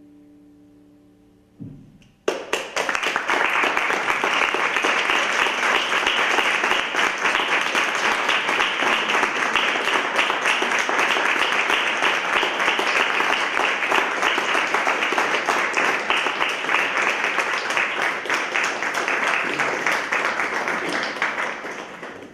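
The last held note of a piano-accompanied song dies away, then an audience breaks into applause about two seconds in. The applause runs on steadily and fades out near the end.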